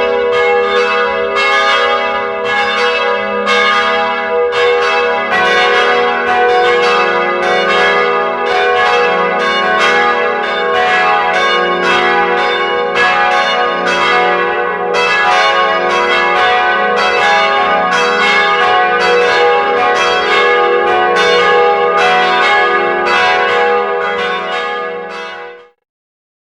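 Church bells ringing, a steady run of strikes in quick succession with each bell ringing on into the next, fading out quickly near the end.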